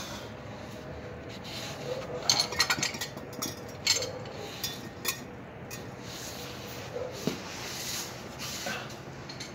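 Metal hand tools clinking and knocking against metal: a quick cluster of sharp clinks about two seconds in, single clinks near four and five seconds, and a duller knock later.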